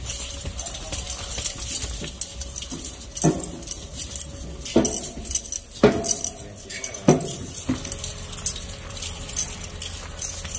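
Metal clinking and jangling, with a handful of louder knocks through the middle.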